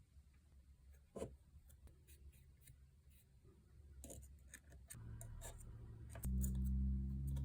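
Small clicks and scrapes of a power tool being handled, then about five seconds in an electric motor, likely the Makita reciprocating saw's, starts to hum steadily. It gets much louder about a second later.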